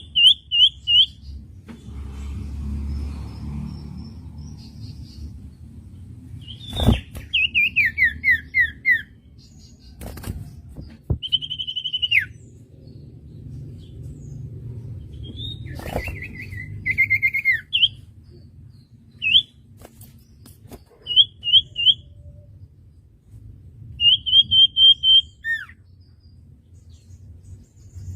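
Common iora (cipoh) singing: runs of quick, high whistled notes, several in a row and some sliding down in pitch, repeated every few seconds over a low background rumble.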